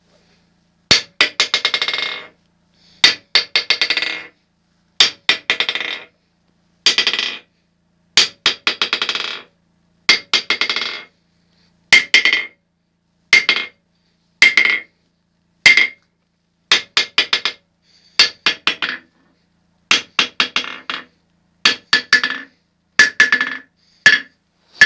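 Hammer striking the face of a steel anvil built from scrap: about fourteen short clusters of sharp, ringing strikes, each cluster loudest at the first hit and dying away, with brief gaps between.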